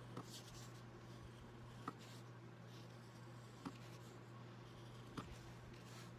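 Fine-tip ink pen scratching faintly over watercolour paper as outlines are drawn, in short strokes, over a low steady hum. A sharp little click sounds about every one and a half to two seconds.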